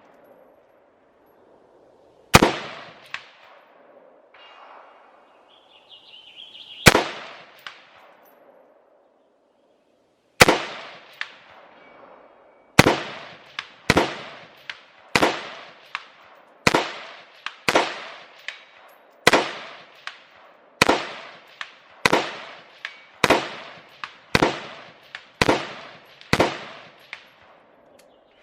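Springfield Saint Edge AR-15 pistol firing 5.56 rounds one at a time, about fifteen sharp shots. The first few come several seconds apart, then they settle into a steady string of roughly one shot a second.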